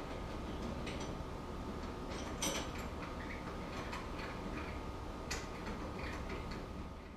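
Scattered light metallic clicks and taps as an Allen key works the screws on a personal watercraft's handlebar clamp, over a steady low background hum.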